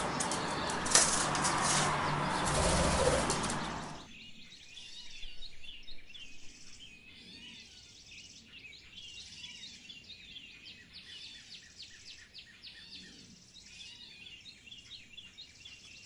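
A loud rushing, rustling noise with a few sharp clicks for the first four seconds, then an abrupt change to small songbirds chirping and twittering in many quick, high notes.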